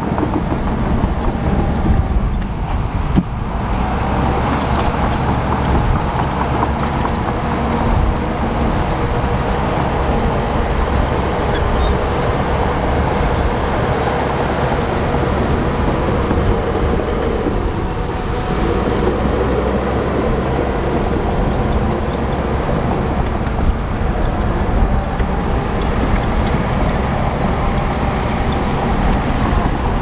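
Dump truck's diesel engine running steadily while its tipper bed is raised to dump a load of soil.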